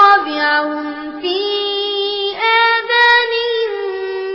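A young child's voice reciting the Quran in melodic chant, drawing out long held notes that step up in pitch about a second in and again about a second later.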